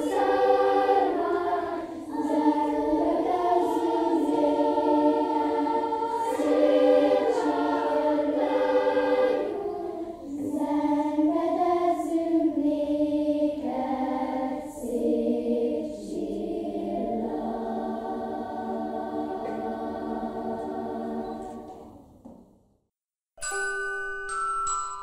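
Children's choir singing a song in parts, ending on a long held chord that fades out a little over twenty seconds in. After a brief silence, a tinkling tune of struck, ringing bell-like notes starts near the end.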